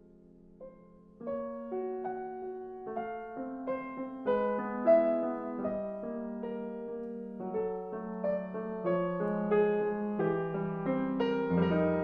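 Solo piano music. A faint held chord gives way about a second in to the piano entering with chords under a melody. A low bass note joins near the end.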